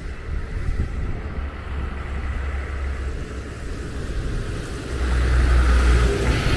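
Dump truck's engine running close by, growing louder about five seconds in as the truck comes alongside.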